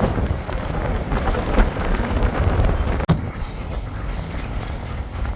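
Loud, gusty rumble of wind buffeting the microphone over road traffic noise while on the move, with a brief break about three seconds in.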